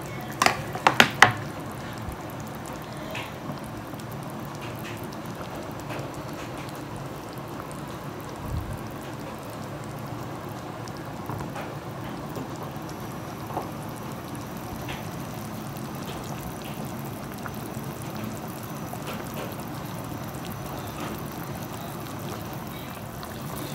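Milkfish asam rebus broth simmering in a wok, a steady low bubbling with faint scattered pops. A few sharp clicks about a second in.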